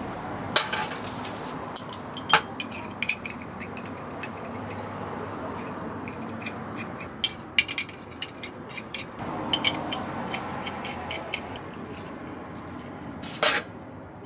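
A scattered series of light clicks and clinks, like small hard objects being handled, over a steady background hiss, with louder knocks about half a second in and near the end.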